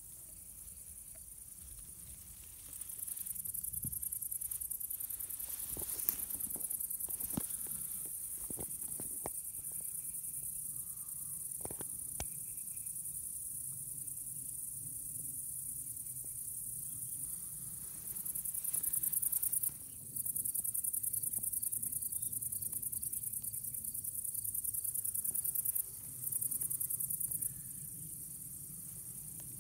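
Insects chirring in meadow grass: a continuous high-pitched, rapidly pulsing trill that starts about three seconds in and grows louder in stretches near the end, with a few brief clicks in the first half.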